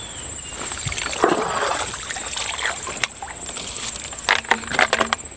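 Eel trap being pulled and handled in muddy water among grass: rustling and splashing, with a few sharp knocks about four seconds in, over a steady high insect trill.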